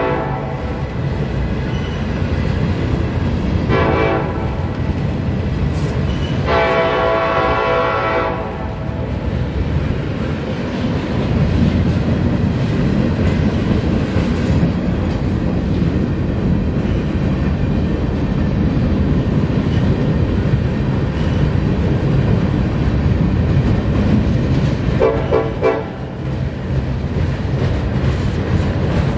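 Diesel locomotive's multi-note air horn blowing: a long blast fading out in the first second, a short blast about four seconds in, then a long blast of about two seconds, in the long-short-long ending of a grade-crossing signal. A short toot comes near the end, over the steady rumble and rail clatter of the passing train.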